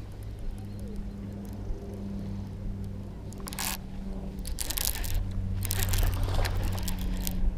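Baitcasting reel being cranked while a hooked largemouth bass is reeled in, with a steady low hum under it and bursts of rough noise from about halfway through.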